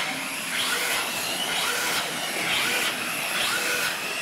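Radio-controlled trophy trucks racing on a dirt track, their motors making a high whine that rises and falls in pitch with the throttle.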